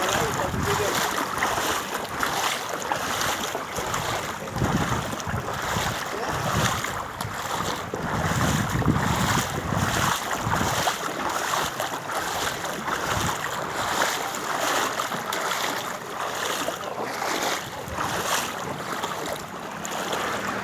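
Rain and rushing water on a flooded street, with wind buffeting the microphone in uneven low rumbles.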